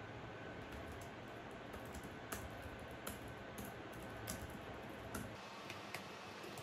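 Typing on a compact keyboard with round keycaps: irregular, scattered key clicks, faint over a low steady hiss.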